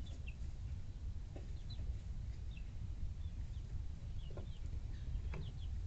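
Young chickens chirping and clucking softly in short, scattered calls, over a steady low rumble.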